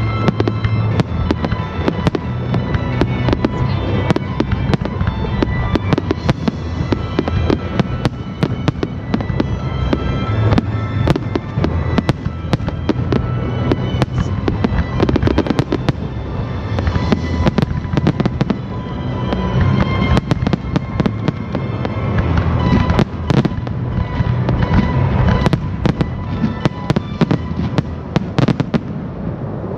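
Display fireworks going off in a dense run of sharp bangs and crackles over loud music with a low beat, the finale of a fireworks show set to music. The bangs thin out near the end.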